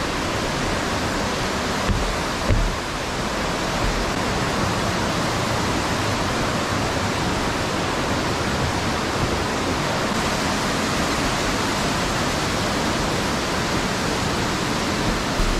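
Mountain stream rushing over boulders: a steady, unbroken rush of water. A couple of dull low bumps come about two seconds in.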